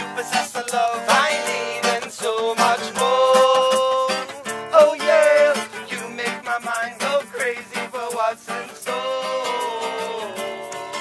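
Acoustic guitar being strummed while a voice sings a melody, holding a couple of long notes.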